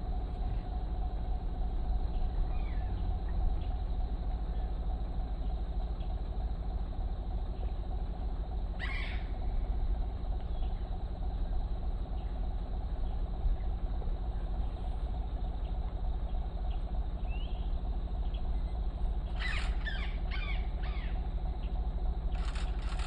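Birds calling in the wild over a steady low rumble: one short call about nine seconds in, then a quick run of calls near the end.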